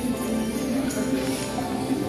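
Recorded music accompanying a traditional stage dance: a sustained melody line with held and gliding notes over a light high shimmer of percussion.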